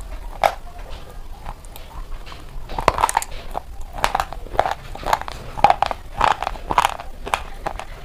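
Close-up crunching as hard, brittle sticks are bitten and chewed, with sharp crisp crunches every half second or so, coming thicker from about three seconds in.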